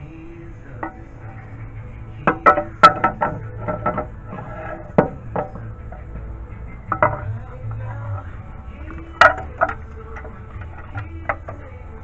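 Metal-on-metal clanks and clinks, each ringing briefly, as a metal timing cover is worked into place on a Mazda 3 2.0L engine and tools are handled around it: a cluster of sharp knocks two to three seconds in, then single knocks spread through the rest.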